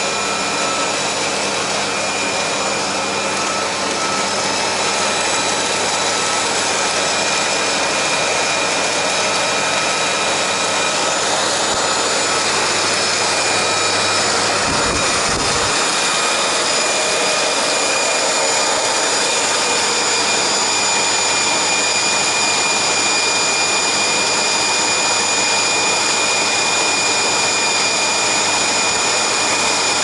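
Bosch canister vacuum cleaner running steadily, a rush of air with a constant high whine over it.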